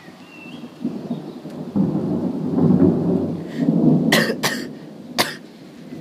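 Thunder rolling: a low rumble builds about a second in, swells through the middle and dies away, with three sharp clicks near the end.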